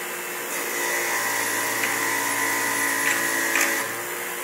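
Bench grinder fitted with a wire wheel running steadily, with a freshly cast sterling silver bar pressed against the spinning wire brush to clean it. The brushing adds a scratchy hiss from about half a second in until near the end, with a few small ticks.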